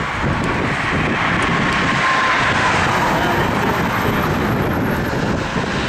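Steady road noise of a car driving along: tyre and engine noise, with no distinct events.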